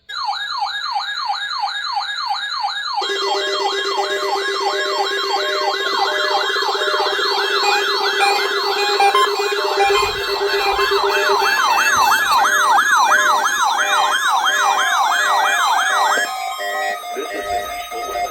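Electronic sirens: a siren yelping up and down about twice a second, joined about three seconds in by a lower, fluttering steady tone that drops out partway through. Near the end the sweeping stops and gives way to steady, repeating beeps.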